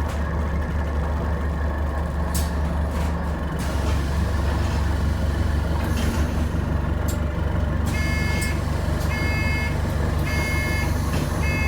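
Interior of an Alexander Dennis Enviro400H City hybrid double-decker bus, its drivetrain running with a steady low drone. From about eight seconds in, a repeated electronic beep sounds, one short beep roughly every second.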